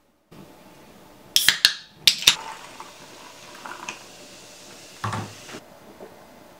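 Sharp clinks as a glass French press is handled, then liquid pouring from it into a plastic cup as a steady splashing hiss that stops after about three seconds, with a short low thud near the end of the pour.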